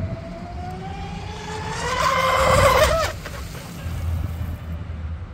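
RC speedboat's twin 3670 brushless motors whining at speed, rising in pitch as the boat speeds up, then cutting off sharply about three seconds in.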